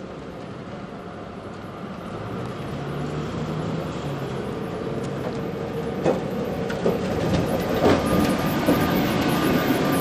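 Gotha T2-62 two-axle tramcar approaching and passing close by on its rails. Its rolling noise grows steadily louder, and several sharp clacks come from the wheels on the track in the second half.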